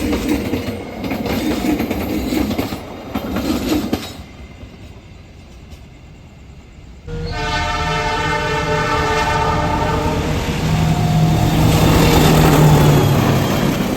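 Train rolling along the rails with clattering wheels. After a short quieter stretch, a locomotive horn sounds suddenly about halfway through: a chord of several tones held for about three seconds. The train noise then grows to its loudest near the end.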